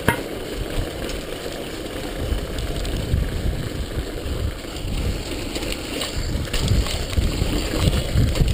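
Wind rushing over an action camera's microphone, mixed with the rumble and rattle of a downhill mountain bike riding fast over a rough stone and dirt lane; the low rumble grows stronger about two seconds in.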